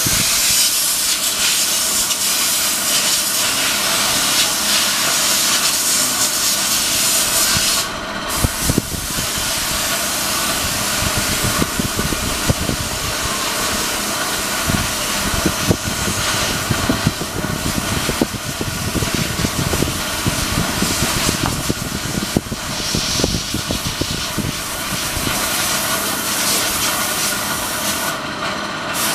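Loud, steady hissing noise, its upper part briefly dropping away about eight seconds in.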